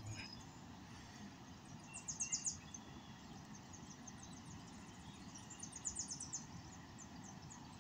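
Birds chirping: two short bursts of rapid high chirps, about two seconds in and again around six seconds, with a few brief whistles, over a faint steady outdoor background.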